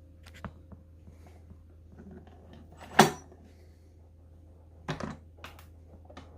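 An electric rice cooker's lid being unlatched and opened: a few light clicks, a loud sharp clack about three seconds in, then a couple of knocks near the five-second mark.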